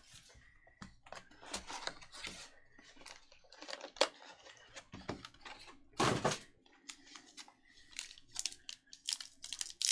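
Hands opening and handling a Topps Chrome Black cardboard box and its foam insert, then a foil trading-card pack: scattered soft clicks, scrapes and crinkles, with a louder rustle about six seconds in.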